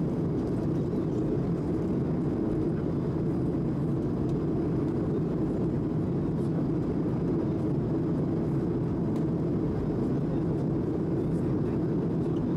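Steady cabin noise of an Airbus A220 airliner heard from a passenger seat: the even rumble of airflow and its Pratt & Whitney PW1500G geared turbofan engines, with no change in pitch or level.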